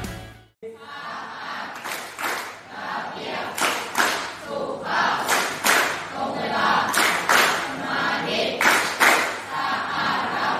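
Large group of students chanting in unison, with sharp claps in a rhythm, often in pairs about every second and a half. Background music fades out just at the start.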